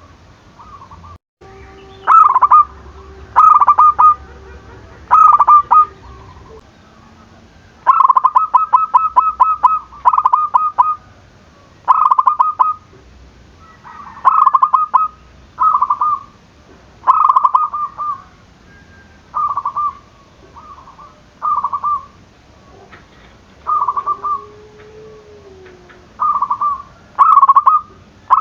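Zebra dove (perkutut) in full cooing song: loud phrases of quick, stuttering coo notes repeated every second or two.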